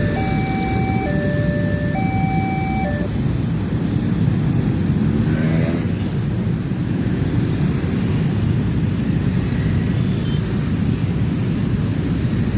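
Railroad level-crossing warning siren, the crossing's new electronic two-tone siren, alternating high and low tones of about a second each and stopping about three seconds in. A steady rumble of road traffic follows, with an engine note rising around five seconds in.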